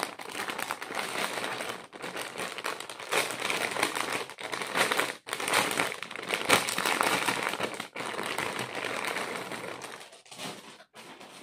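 Clear plastic packaging bag crinkling in the hands as it is opened and an item is pulled out, dying away near the end.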